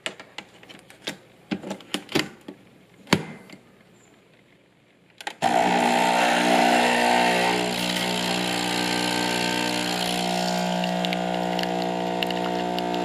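Capsule espresso machine. First a few clicks and knocks as a capsule is loaded and the machine is closed. About five seconds in, the pump starts with a loud, steady hum and hiss as espresso pours into the cup.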